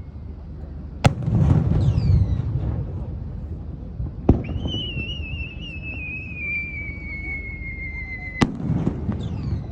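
Fireworks shells firing and bursting: a sharp bang about a second in, followed by rumbling crackle and short falling whistles. A second launch brings a long whistle that slowly falls in pitch for about four seconds and ends in a loud burst, followed by more crackle.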